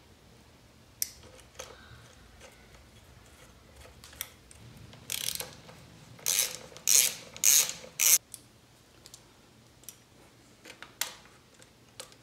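Socket ratchet wrench clicking in five short runs, working bolts, with a few single metallic clicks before and after.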